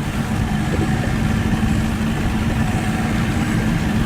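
A motorboat engine idling steadily, a low, even hum.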